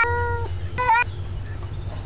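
Male domestic cat yowling at another male cat in a territorial standoff: a long, drawn-out yowl ends about half a second in, followed by a short yowl that rises at its end.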